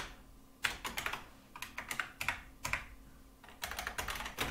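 Typing on a computer keyboard: quick runs of keystroke clicks, with short pauses between the runs.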